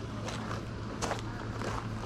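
Footsteps of people walking around a house, a few soft steps, over a steady low hum.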